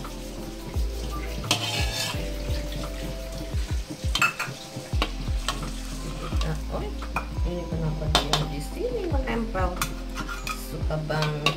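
Sliced ginger frying in hot oil in a metal wok, with a steady sizzle. A metal spatula stirs and scrapes against the wok, giving repeated sharp clicks and scrapes.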